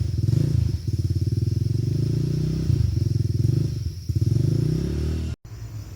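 Dirt bike engine running at low revs, its note rising and falling a few times with the throttle. It cuts off abruptly near the end, leaving a quieter rumble.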